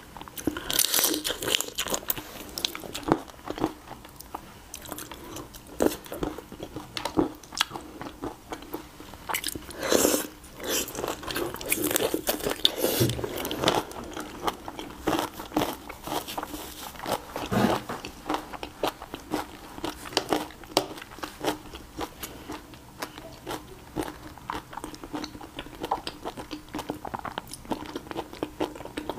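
Close-miked eating of raw shrimp in chili sauce: shells cracked and peeled by hand, with wet sucking and chewing. Many short clicks and crunches, in louder clusters a second in, around a third of the way through and near the middle.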